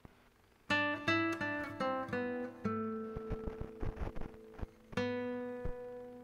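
Background music on acoustic guitar: a run of plucked notes starts just under a second in, then a strummed chord about five seconds in rings out and slowly fades.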